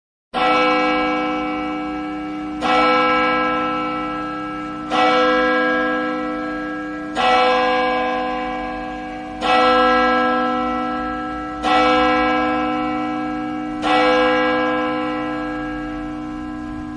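A single church bell tolling seven times, one stroke about every two and a quarter seconds, each stroke ringing on and fading under the next, with a low hum held throughout.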